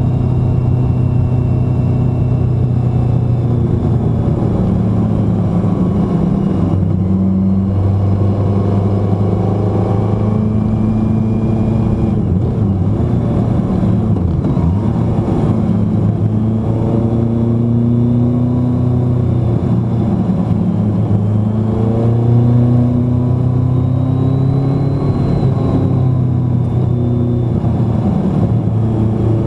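A road vehicle's engine running under way on a winding road, its pitch rising and falling as it speeds up and eases off through the bends, with a step in pitch a few times, over wind and tyre noise.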